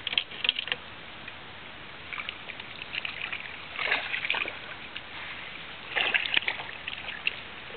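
Hooked smallmouth bass splashing at the water's surface in three short bursts, over a steady hiss.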